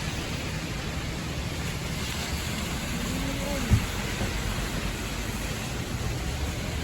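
Steady rushing background noise with a low rumble, faint voices, and one short thump about halfway through.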